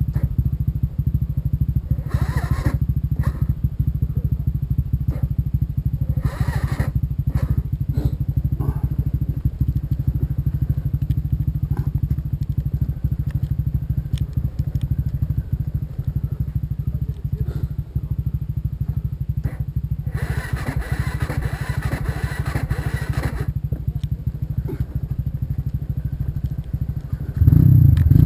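Off-road trail motorcycle engine running at a steady idle, with a few knocks and a hiss lasting about three seconds in the middle; the engine gets louder near the end.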